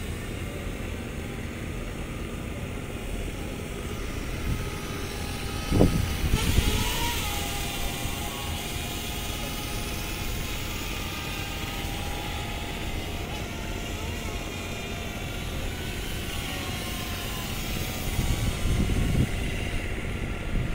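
DJI Mavic Air drone's propellers whining steadily in flight over a constant outdoor rush, with two louder low rumbles, one about six seconds in and one near the end.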